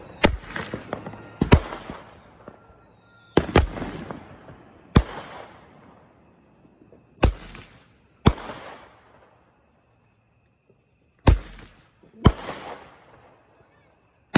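Handheld Roman candle firing shot after shot: about nine sharp pops, often in pairs about a second apart with short pauses between, each followed by a fizzing crackle that dies away.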